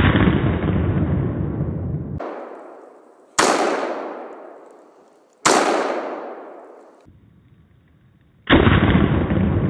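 AR-15 rifle shots in slowed-down audio, each a sudden boom that fades over a second or two. There are four in all: one right at the start, then others about two to three seconds apart.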